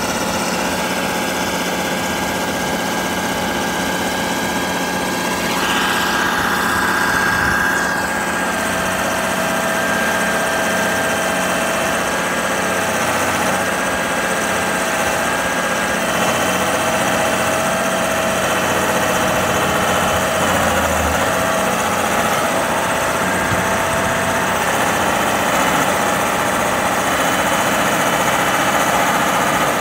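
Hydraulic excavator's diesel engine running steadily as it works the boom and bucket, with a tone that comes and goes.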